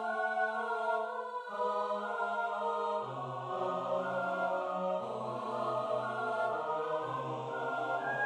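Four-part a cappella choir piece played back from the score with sampled choir voices, holding steady sustained chords that change every second or two. A low bass voice comes in about three seconds in.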